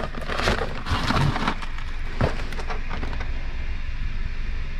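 Rustling and crinkling of plastic food packaging and cardboard as packages of meat are handled and shifted in a box, in a few short sharp strokes, over a steady low rumble.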